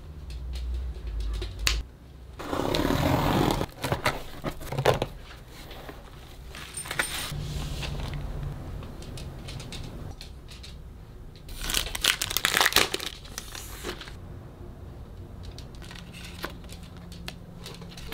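Clear plastic packaging crinkling and cards rustling as they are unwrapped and handled, with small clicks throughout. There are two louder spells of crinkling, a few seconds in and again past the middle.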